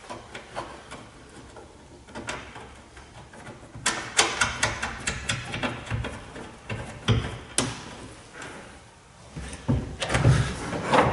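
Clicks and knocks of bolt hardware being handled and fitted against a diamond-plate truck toolbox, with a quick run of clicks in the middle and a sharper knock a little after.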